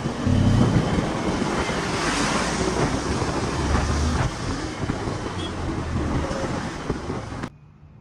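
Wind rushing over the microphone on a moving Bajaj Pulsar N250 motorcycle, with the bike's engine and road traffic rumbling underneath. The sound cuts off abruptly near the end, leaving a much quieter low hum.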